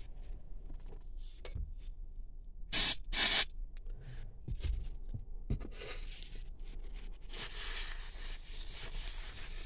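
Brake cleaner sprayed from an aerosol can in two short hissing bursts about three seconds in, then a cloth rubbing back and forth to wipe the steering-wheel paddle shifter clean.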